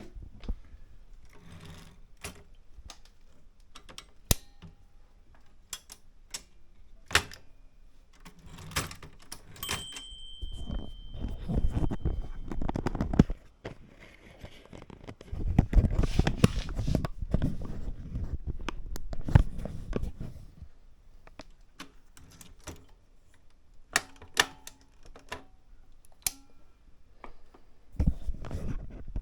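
Opticon office typewriter being worked: scattered sharp mechanical clicks and knocks, with two longer stretches of busy clatter about a third and two-thirds of the way through.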